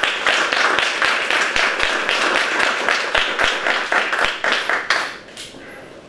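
Audience applauding with dense hand-clapping, dying away about five seconds in.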